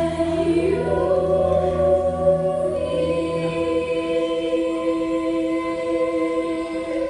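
Choir singing in harmony, holding long sustained notes that step up in pitch about a second in. The lowest notes stop about halfway, and the upper voices hold on in what sounds like the song's closing chord.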